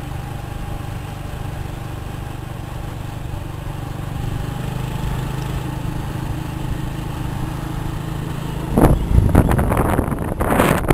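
A vehicle's engine running with a steady hum while driving along a road. About nine seconds in, wind starts buffeting the microphone in loud gusts.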